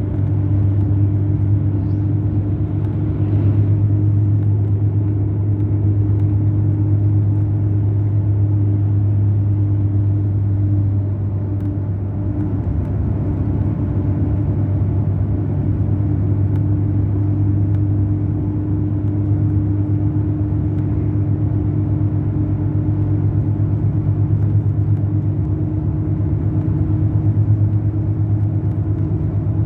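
Mercedes-Benz O500 RSD BlueTec5 bus's diesel engine running steadily, a continuous low drone with a steady hum above it.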